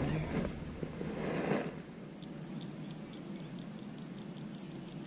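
Steady high-pitched drone of insects over the pond. A louder rush of noise dies away about two seconds in, and faint quick ticks come through in the last few seconds.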